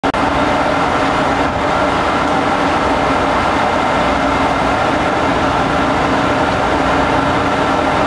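Steady drone of a ship's machinery, with a constant hum that holds the same pitch throughout.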